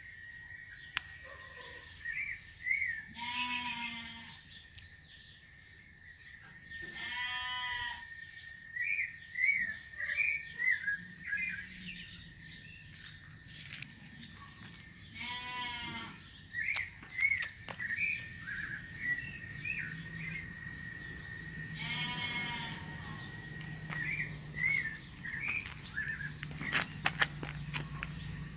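Four drawn-out bleating animal calls, each about a second long and several seconds apart, over a steady high whine with short bird-like chirps.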